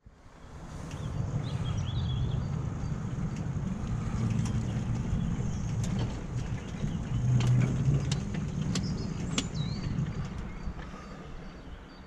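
A miniature-railway locomotive's engine running steadily as it travels along the track, swelling a little about seven seconds in, with scattered sharp clicks.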